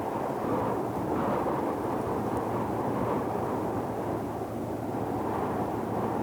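Deep ocean sleep noise: a steady, low, rushing noise with gentle swells, mostly deep with little hiss.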